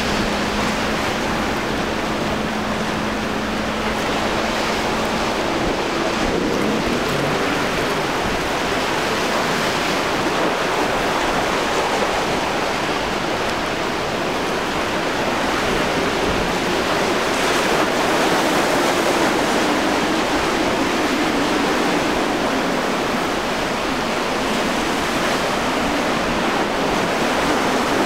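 Steady rush of surf and wind with the faint hum of a Yamaha outboard motor on a center-console boat running at speed.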